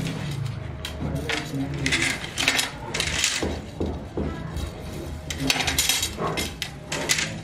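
Thin metal heater-rod tubes clinking and rattling against one another as they are pulled by hand from a loose pile, in irregular clusters of sharp clatter, over a steady low hum.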